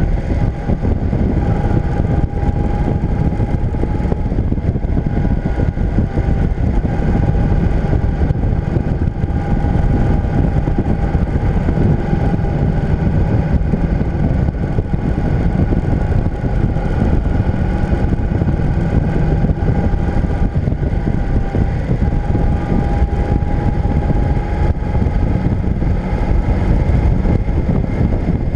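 Motorcycle cruising at a steady speed: engine running with a steady whine under heavy wind rumble on the bike-mounted camera's microphone.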